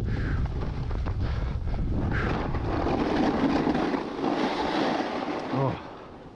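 Strong blizzard wind buffeting the microphone, a heavy low rumble that gives way to a rushing hiss about halfway through, then eases off near the end.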